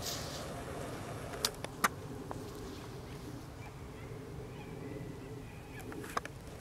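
Faint steady open-air background hiss, with a couple of short sharp clicks about a second and a half in and another near the end.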